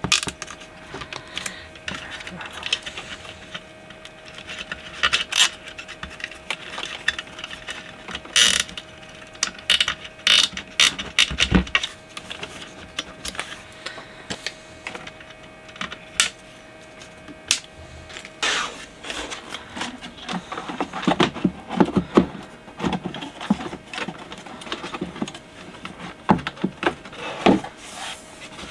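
Nylon cable ties being ratcheted tight, with scattered clicks and knocks of parts and wiring being handled inside the speaker cabinet.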